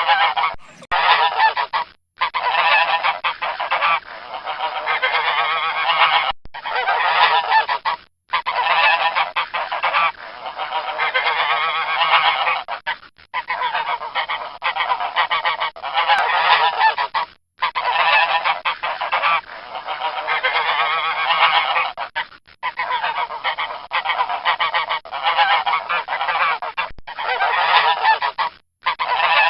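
Domestic geese honking almost continuously, loud and dense, with a few brief silent breaks.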